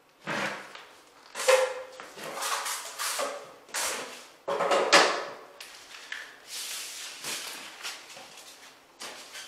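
Drywall taping knife scraping and wiping joint compound along a wall seam in a rapid series of short strokes, the loudest about a second and a half in and about five seconds in.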